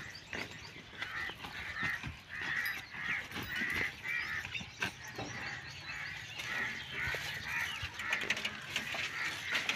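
Birds calling over and over, short calls at about two a second, with faint footsteps and clicks underneath.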